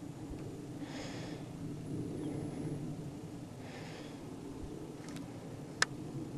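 A person breathing close to the microphone, a soft breath about every three seconds, over a steady low rumble. A sharp click sounds near the end.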